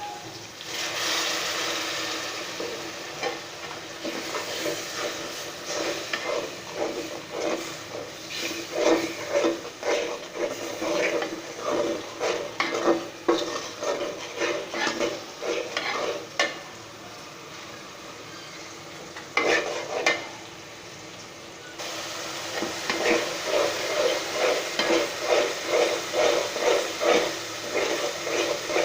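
Food frying and sizzling in a pan while a spatula stirs it with repeated scraping strokes. A quieter stretch with fewer strokes comes a little past the middle.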